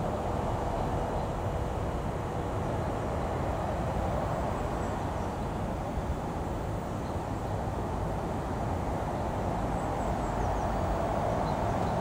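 Steady rushing of water, with a low rumble underneath.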